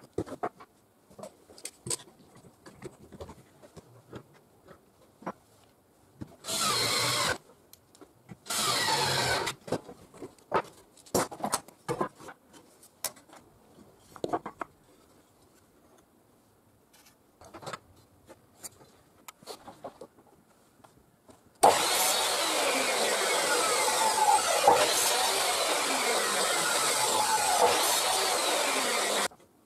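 Bosch mitre saw running for about seven seconds near the end, its blade cutting a small wooden block. Before it, scattered knocks of wooden blocks being handled on a bench, and two short bursts of a power tool, each under a second.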